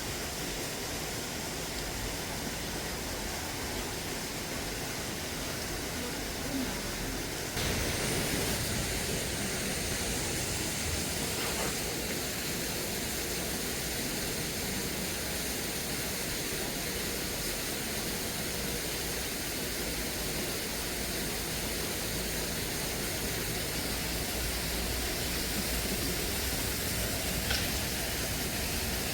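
Steady rain, an even hiss that grows louder about seven or eight seconds in.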